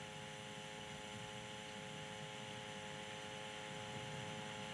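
Faint, steady electrical hum with hiss: several fixed tones held without change, the noise floor of the recording.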